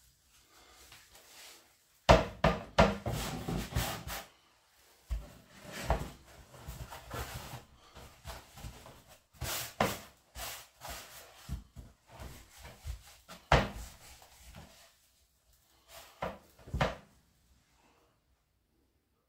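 Hands rubbing and rolling a netted pork belly in ground pepper in a plastic tray: irregular rubbing and rustling, heaviest about two to four seconds in, with a few sharp knocks later on.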